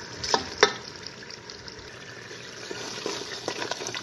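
Ground spices frying in hot oil in a metal pot, a steady sizzle, with two sharp knocks of a wooden spoon against the pot about half a second in. From about three seconds in, the spoon scrapes and taps lightly as it stirs.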